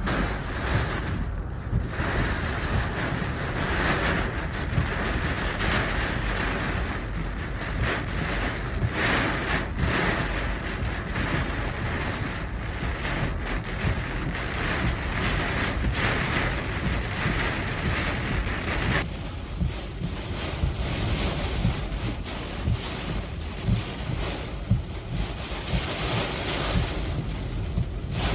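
Hurricane-force eyewall wind blasting the microphone, a dense, steady rush with gusts buffeting it.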